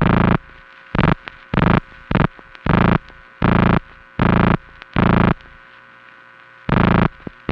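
A telephone number being keyed by hand: nine short, loud, distorted telephone tone bursts, each one digit, at an uneven pace, with a low hum between them.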